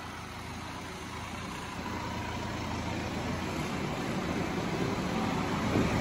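Massey Ferguson 3710 tractor's diesel engine running steadily, growing gradually louder.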